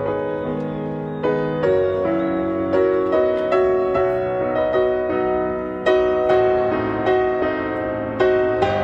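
Background piano music: a slow, gentle melody of single struck notes and chords, each ringing and fading before the next.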